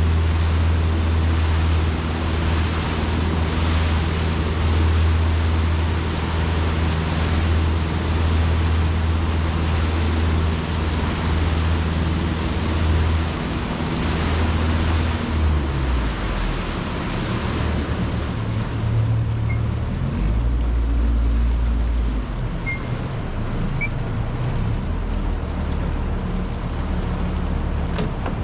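Churning tailwater rushing around a drifting boat below a hydroelectric dam. Under it runs a low, steady drone whose pitch shifts a few times.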